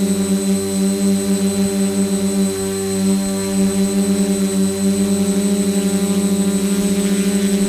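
DJI F450 quadcopter's four brushless motors spinning Graupner 9x5 E propellers in forward flight, heard from a camera on the frame: a loud, steady pitched buzz with a fast flutter.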